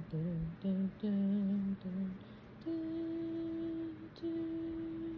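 Wordless humming of an improvised tune: a few short, lower notes, then about two and a half seconds in a step up to a long held higher note, a brief break, and a second long held note.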